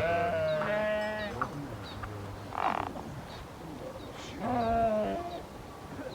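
Sheep bleating: one long, wavering bleat at the start and another about four and a half seconds in, with a short hissing burst in between.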